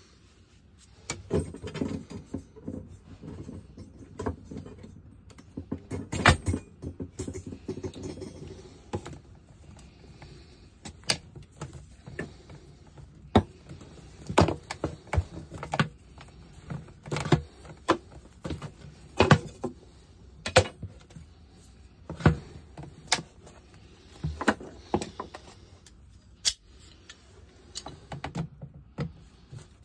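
Hands working a PVC pipe union and a pair of pliers on a sump pump discharge pipe. Irregular sharp clicks, knocks and clinks of plastic and metal come every second or so, with rustling handling noise between them.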